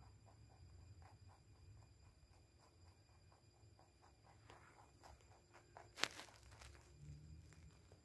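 Faint rhythmic crunching of a rabbit chewing carrot, a few crunches a second, over a low rumble, with one sharp click about six seconds in.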